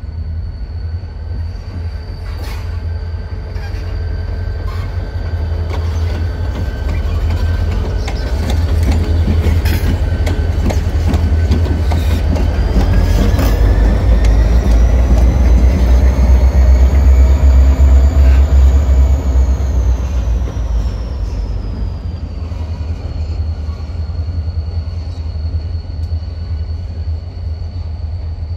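Two EMD SD35 diesel locomotives, each with a turbocharged 16-cylinder two-stroke engine, running light past at close range. The engine rumble builds to its loudest about halfway through as they pass, then eases as they pull away. A run of sharp clicks comes in the first half, and a high whine rises in pitch, peaks and falls back during the pass.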